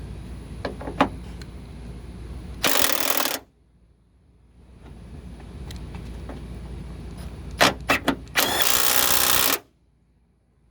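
Hercules 12 V cordless 3/8-inch impact wrench hammering on a nut in two short bursts. The first, under a second long, comes about three seconds in. The second, about a second long, comes near the end and follows a few quick blips of the trigger.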